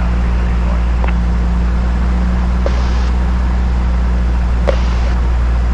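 Cessna 172's piston engine and propeller running steadily at run-up power of about 1800 RPM, heard inside the cabin during the pre-takeoff engine check.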